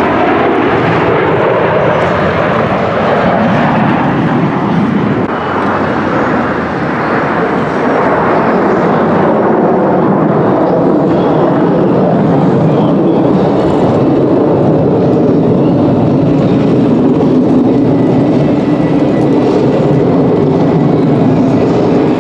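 Aircraft flying past: a loud, steady engine rush, with sweeping changes in tone over the first few seconds as it passes.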